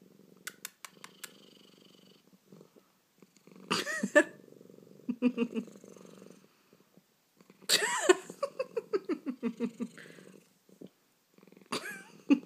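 Domestic cat purring, with hiccups. Three short, louder sounds break into the purr about four seconds apart, each followed by a quick run of pulses.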